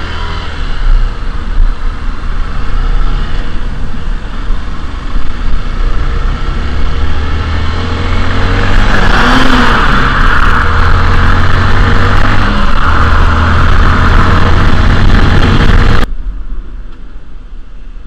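Motorcycle being ridden on the road: its engine runs under heavy wind noise on the rider's camera microphone. The sound grows louder about halfway through and drops off abruptly near the end.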